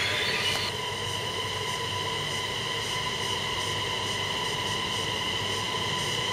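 Øresundståg electric multiple unit rolling slowly into the platform. A harsh high squeal dies away under a second in, leaving a steady high-pitched whine over a low rumble as it slows.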